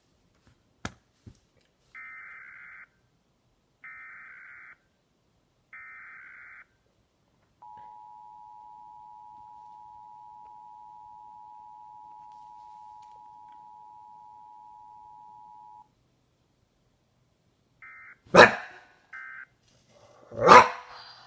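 Emergency Alert System test: three short warbling data bursts of the SAME header about two seconds apart, then the two-tone attention signal held steady for about eight seconds and cut off, with no voice message after it, before short end-of-message bursts. Two loud, sudden bark-like outbursts break in near the end.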